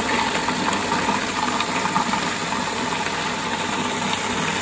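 Electric food processor running steadily, its blade chopping a full bowl of chilli peppers, carrots and garlic into a coarse hot pepper mash.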